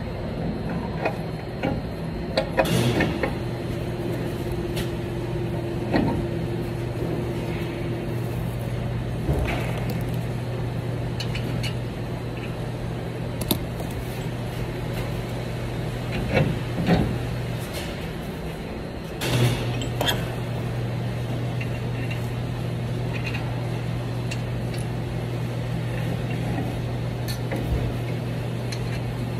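Steady low hum in a shop, with a few scattered metallic knocks and clunks as a Ram 1500 steering knuckle, with its hub and brake rotor attached, is moved by hand.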